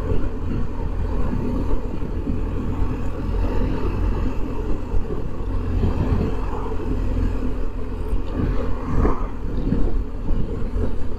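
BMW R1250GS Adventure's boxer-twin engine running at a steady low road speed, with tyre and road noise.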